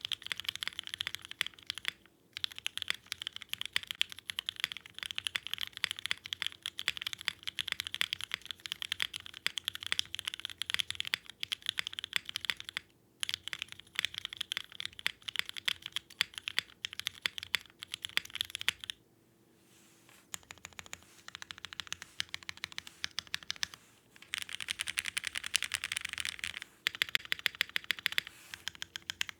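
Continuous typing on a Bakeneko mechanical keyboard with lubed JWICK Black full-nylon linear switches on an aluminium plate and ABS keycaps: a dense stream of keystroke clacks. The typing stops briefly about 2 and 13 seconds in, and for about a second around 19 seconds in.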